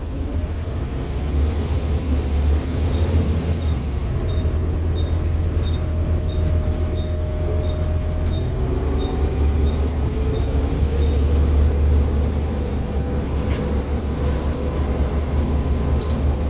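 Diesel double-decker bus under way, heard from on board: the engine pulls with a low rumble that builds about a second in, with a gearbox whine rising and shifting as it accelerates. For several seconds in the middle the turn indicator ticks about one and a half times a second.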